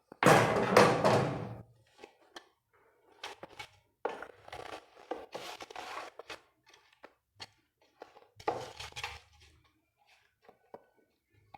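Kitchen handling noises: a loud scraping rustle near the start, then shorter bursts of scraping and a few light knocks and clicks.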